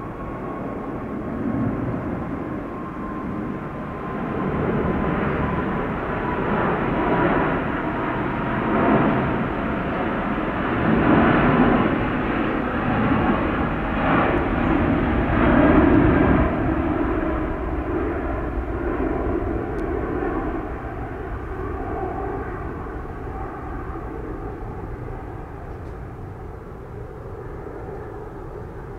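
Airbus A380's four jet engines at takeoff power as the airliner climbs out after departure, with a faint falling whine in the first several seconds. The engine noise swells to its loudest about halfway through, then slowly fades as the aircraft flies away.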